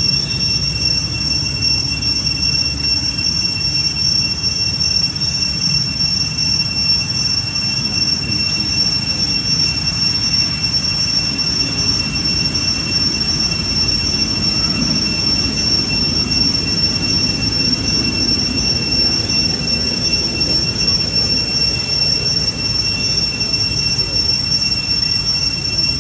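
Steady, high-pitched insect chorus whining on two unchanging pitches, over a low rumble.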